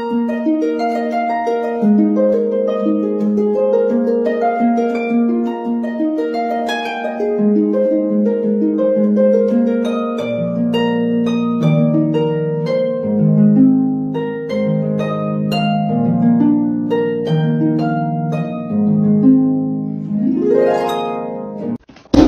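Background music on harp: a stream of plucked, rippling notes, with lower notes joining about halfway and a quick upward sweep across the strings near the end.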